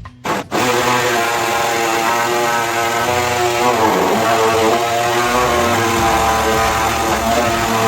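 A high-speed power tool runs loudly about half a second in, its motor whine wavering and dipping in pitch as it is loaded against the sheet metal.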